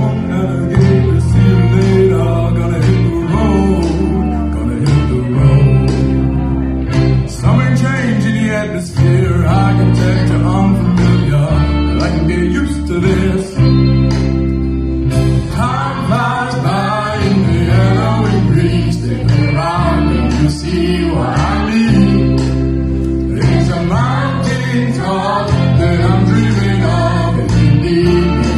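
A pop song with singing over guitar and a steady bass line.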